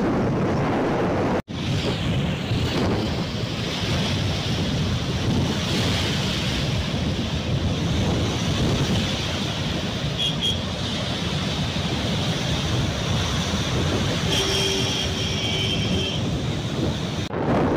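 Steady roar of water pouring through the open spillway gates of the Nagarjuna Sagar dam, with wind buffeting the microphone.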